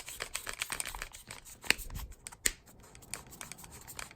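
Gedore Torcofix K torque wrench's adjusting handle being turned up the scale: a run of quick, light clicks that thin out after about two and a half seconds.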